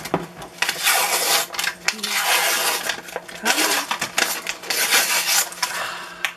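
Paper wrapper being torn and peeled off a cardboard tube of refrigerated biscuit dough, in about five rough tearing rasps with short pauses between them.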